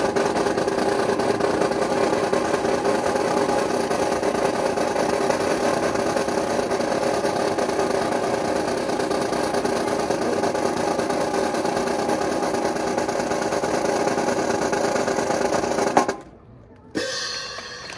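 Marching drum section's snare drums playing a long, unbroken roll with the drums ringing. It cuts off abruptly on a sharp accent about sixteen seconds in.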